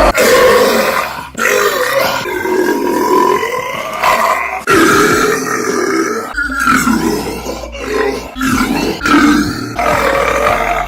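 A string of loud, drawn-out human burps, one after another. Each is a long, throaty, pitched belch that wavers up and down, and they are joined by abrupt cuts.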